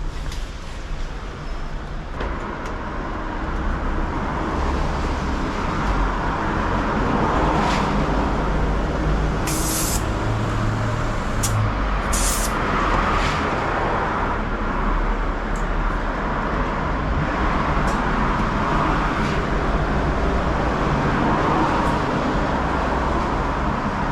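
Road traffic: a steady rumble of passing vehicles that grows louder over the first few seconds, with two short, sharp hisses about ten and twelve seconds in.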